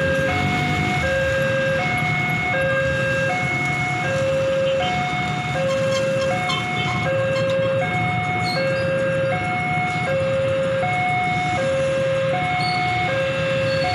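Railway level-crossing warning alarm sounding a two-note electronic chime, alternating lower and higher notes about one pair every one and a half seconds, over the low rumble of motorcycles and cars.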